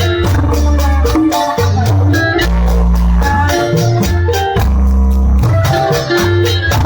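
Live Sundanese buleud (bajidor) band music: heavy bass notes and melodic lines over a steady drum rhythm.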